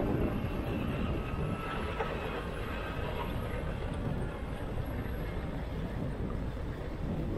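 Steady diesel rumble of heavy earthmoving machinery: a crawler loader driving close by, with a Sumitomo 490 excavator digging and swinging behind it.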